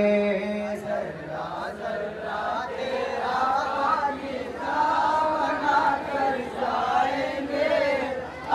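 A group of men chanting the refrain of a noha, an Urdu mourning lament, together in unison with wavering, melismatic pitch. A single voice's long held note ends about a second in, just before the group takes over.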